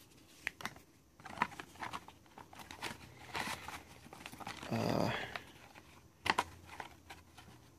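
Handling sounds from 3.5-inch floppy disks and a cardboard diskette box being opened: light plastic clicks, cardboard scraping and rustling, with a brief murmur of the voice about five seconds in.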